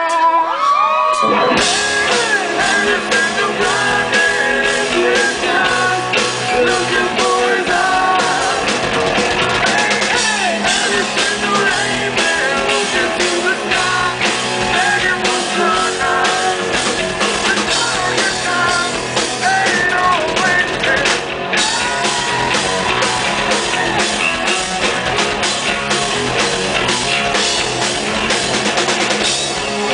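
Live rock band playing: electric guitars, a drum kit keeping a steady beat, and a singer's voice. The full band comes in about a second and a half in, after a brief sung passage.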